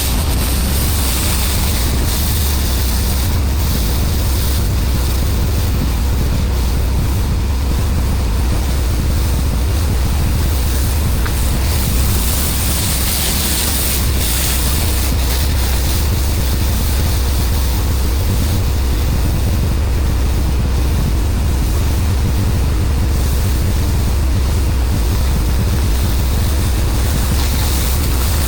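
Pressure-washing equipment running: a steady engine drone under a continuous hiss of high-pressure water spraying.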